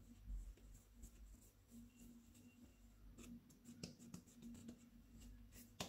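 Near silence with faint handling sounds: hands pressing and patting a stuffed dough ball flat, soft rubs and light ticks, with a soft low thump just after the start.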